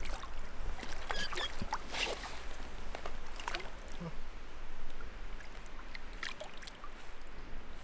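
Small, irregular splashes and drips of shallow water as a hand and a small trout move in it at the water's edge.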